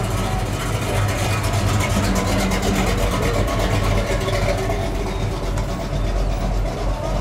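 V8 muscle car exhausts rumbling as classic cars roll slowly past: a Buick cruises by, and a Dodge Challenger convertible comes up behind it near the end.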